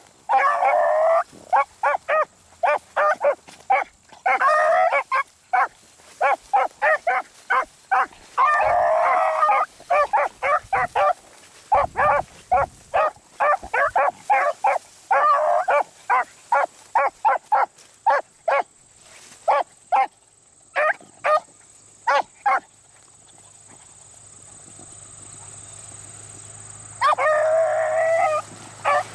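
Beagles baying while running a rabbit's scent trail: quick short chop barks mixed with several longer, drawn-out bawls. The barking stops for a few seconds after about 22 seconds, then another long bawl comes near the end.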